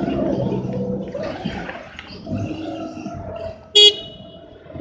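Forklift truck running as it is driven, with one short beep of its horn near the end.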